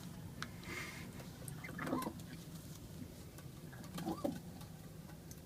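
Racing pigeon giving two short low coos, about two seconds in and again about four seconds in, with faint scattered clicks and scratches between them.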